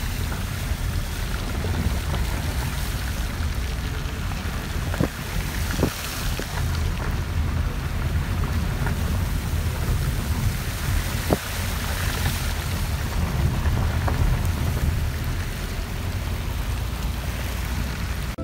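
Wind rushing and buffeting the microphone from a moving car, a loud, steady, rumbling roar with a few sharp clicks.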